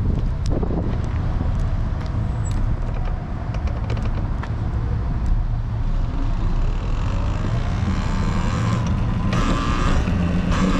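Talaria Sting electric dirt bike riding on pavement: a steady low rumble of tyres and wind on the microphone, with the motor's whine rising in pitch as it speeds up from about halfway through.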